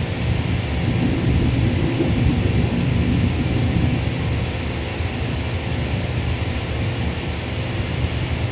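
Distant jet airliner engines giving a steady low rumble, with a faint steady whine and hiss above it.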